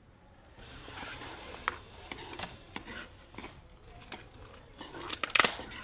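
Metal spoon scraping and clinking against a steel kadhai while stirring masala as it roasts. There is a string of irregular clinks from about a second and a half in, coming faster and loudest near the end.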